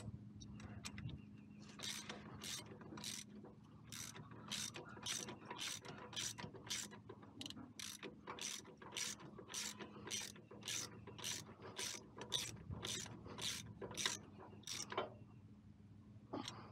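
Hand ratchet with a 16 mm socket worked back and forth in even, rapid strokes, about two or three a second, each return stroke giving a short run of pawl clicks, as the stabilizer bar's bracket nuts are snugged down. The ratcheting starts about two seconds in and stops near the end.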